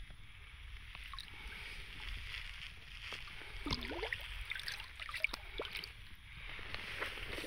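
Lake water lapping and splashing quietly against a canoe's side as a hand moves a lake trout on a stringer in the water, with small scattered drips and clicks.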